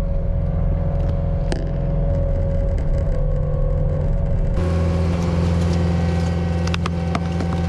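Caterpillar skid steer's diesel engine running steadily with a low hum. About halfway through the sound grows fuller, with added hiss, and a few sharp clicks come near the end.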